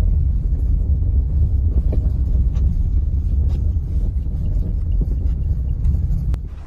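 Low, steady rumble of a car moving over a snowy road, heard from inside the cabin, with a few faint ticks.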